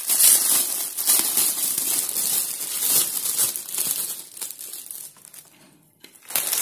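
Clear plastic packaging bag crinkling as it is pulled off the scanner's foot pedal and cable by hand. The rustling dies away about five seconds in, with a brief rustle again near the end.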